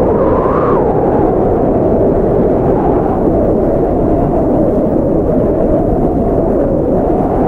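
Blizzard wind blowing steadily, a dense, deep rush of noise. Its pitch rises briefly about half a second in and again near the end, as gusts pick up.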